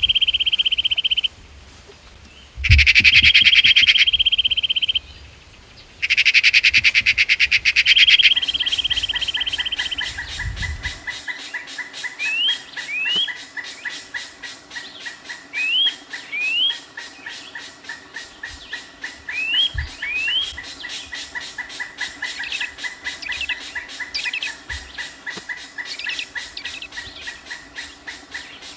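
Birds calling: three long, harsh stretches of calling in the first ten seconds, then short rising chirps repeated every second or so over a steady, high, pulsing trill.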